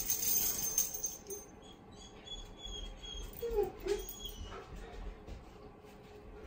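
Mosquitoes whining around the microphone, one sweeping close by about three and a half seconds in, with a few faint high whistles in the background.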